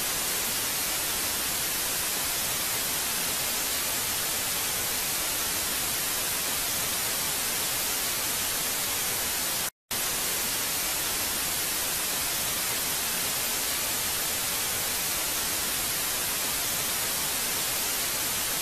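Steady hiss of TV-style white-noise static, cutting out for a split second about ten seconds in.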